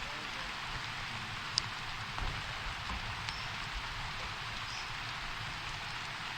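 Steady rain-like hiss, with a few faint, brief high chirps and ticks.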